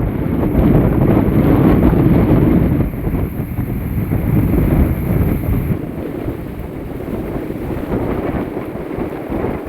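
Strong hurricane wind buffeting the microphone: a steady, loud rushing rumble, strongest in the first three seconds and easing a little after that.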